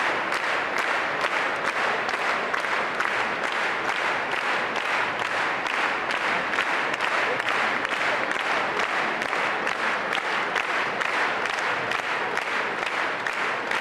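Large crowd applauding: many people clapping together in a steady, dense, unbroken wash.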